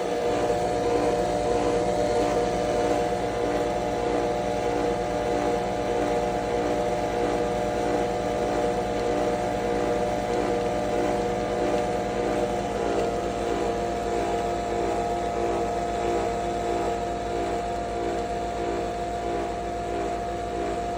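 Capsule coffee machine running through a brew: a steady motor whir with a fast pulse under it, shifting slightly in pitch about halfway through.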